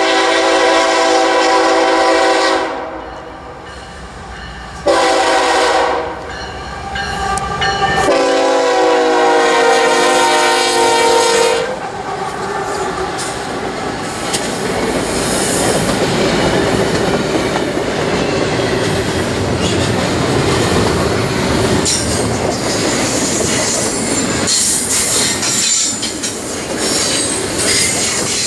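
CSX freight locomotive's air horn sounding a long blast, a short one and another long one, the pattern blown for a grade crossing. Then the locomotives and double-stack container cars pass close by: a steady rumble of steel wheels on rail with clickety-clack and some high wheel squeal toward the end.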